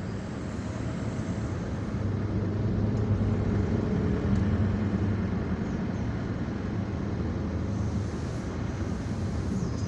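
Vehicle engine and road noise heard from inside a moving car's cabin: a steady low hum that grows a little louder about two seconds in and eases off slightly toward the end.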